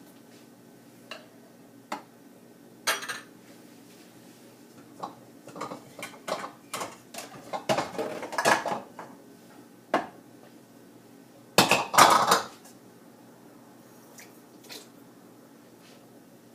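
Kitchen dishes and utensils clattering and clinking as containers are handled, in short irregular knocks. There is a busier run of clatter in the middle, and the loudest clatter comes about three-quarters of the way through.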